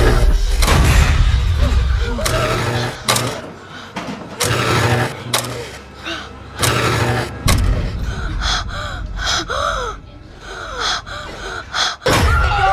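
Film soundtrack of a slide projector clacking through slides over a low hum, with sharp frightened gasps. The clacks come about once a second in the first half; near the end, shorter gasps and whimpers follow quickly.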